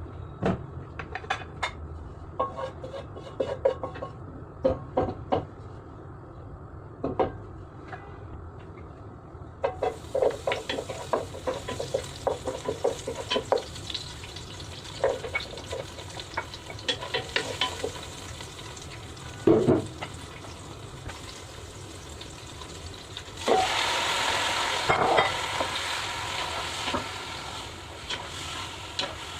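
Metal spatula clinking and scraping in a pan as food is stirred. A frying sizzle comes in about a third of the way through and grows louder for a few seconds near the end.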